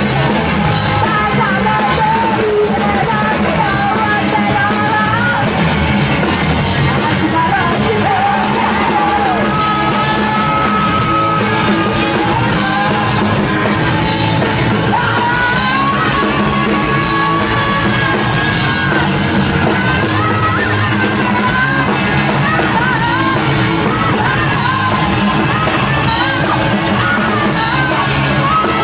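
Live rock band playing loud, with electric guitars, bass and drums and a singer's voice over the top, continuous throughout.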